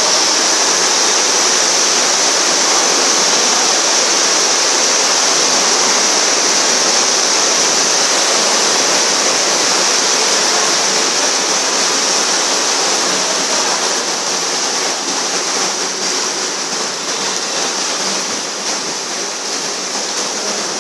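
Floodwater churning and splashing against a moving suburban electric train as it ploughs through flooded tracks: a loud, steady rushing hiss that eases a little over the last several seconds.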